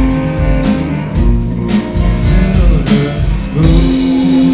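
Live band playing a song: violin, cello and electric guitars with a steady beat, and a long held note near the end.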